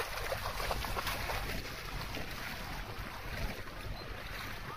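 Bernese Mountain Dog splashing as it wades through shallow lake water, the splashes densest in the first second or so and thinning as it moves farther out, with wind rumbling on the microphone.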